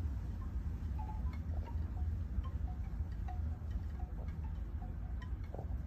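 Wind rumbling steadily on the microphone, with short faint high notes scattered through it and a sharp click near the end.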